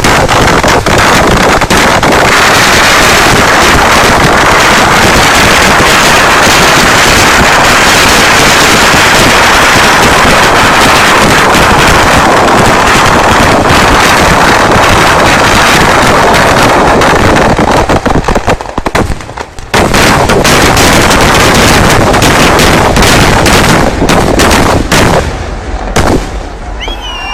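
Finale barrage of a Kerala temple fireworks display (vedikettu): firecracker explosions going off so rapidly that they run together into one continuous loud blast. It breaks off briefly about two-thirds of the way through, resumes, then thins to scattered bangs near the end.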